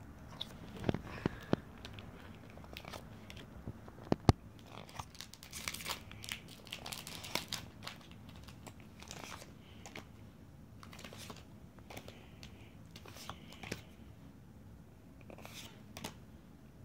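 Pokémon trading cards being handled and flipped through one by one: scattered rustles, slides and flicks of card stock, with a sharp click about four seconds in.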